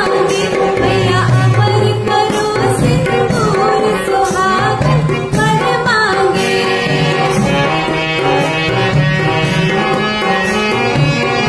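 A woman singing a Bundeli folk song over music with a drum rhythm. About halfway through her voice stops and the instrumental accompaniment carries on alone.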